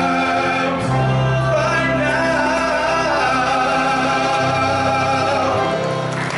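Male vocal quartet singing in close harmony into microphones, with a deep bass voice underneath and long held chords in the second half.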